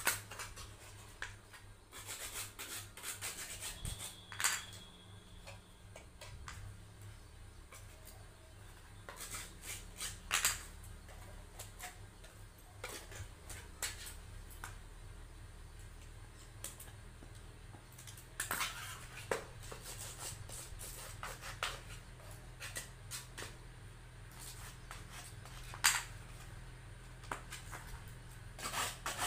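Scissors snipping thin embossed metal foil, and the foil crinkling as it is handled and pressed around a small wooden box, in scattered short snips and rustles over a steady low hum.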